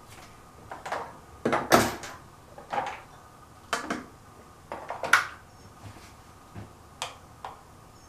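Makeup items being rummaged through and handled: irregular clicks, knocks and brief rustles, the loudest a pair of knocks about a second and a half to two seconds in.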